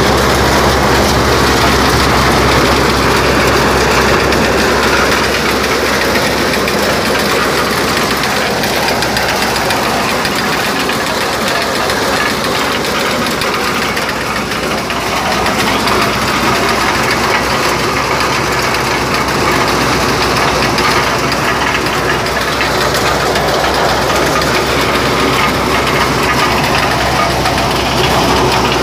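Engine-driven corn sheller running steadily: a small engine's steady drone under a dense rushing noise from the shelling machine, the low engine note fading for a few seconds around the middle before it comes back.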